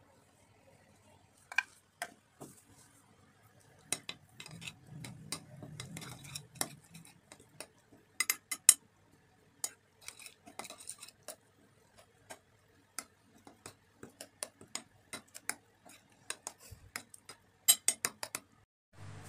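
Metal spoon stirring a wet grated vegetable and spice mixture in a ceramic bowl, with irregular clinks and taps of the spoon against the bowl.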